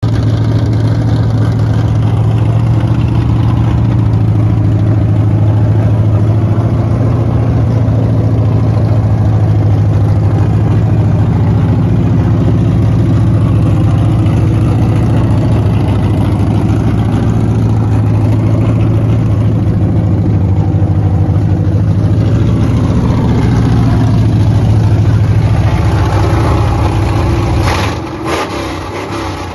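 A 1970 Dodge Challenger's engine running steadily and loudly at a constant speed. Near the end its sound drops and changes, with a few sharp clicks.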